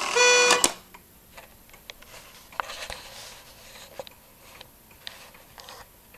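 Trumpeter clock's bellows-blown reed horn sounding the last notes of its hourly tune, cutting off sharply under a second in. Then the clock's movement ticks faintly.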